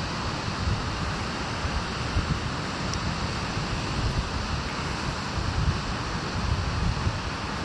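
Wind buffeting the microphone in uneven gusts, over a steady rushing noise of wind.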